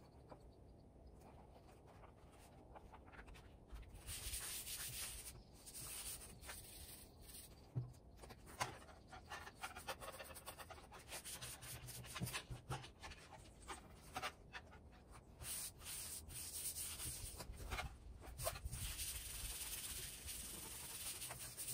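Hands handling and pressing sheets of 2 mm EVA foam flat on a tabletop: faint, irregular rubbing and rustling with light taps, starting a few seconds in.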